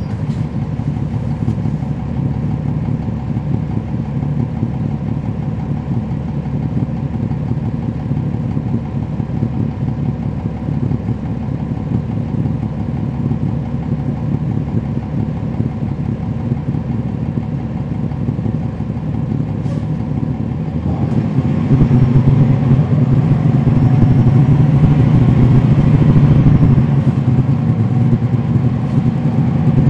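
Cummins ISL9 diesel engine of a NABI 40-foot transit bus, heard from on board, running steadily with a low hum. About two-thirds of the way through it gets louder as the bus accelerates.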